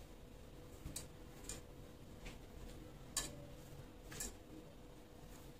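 Fingers rubbing oil into flour in a steel bowl: faint, irregular soft scrapes and ticks about a second apart, over a low steady hum.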